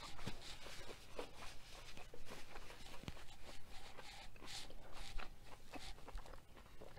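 A person chewing food close to the microphone with the mouth closed: soft wet mouth sounds with scattered small clicks and crunches.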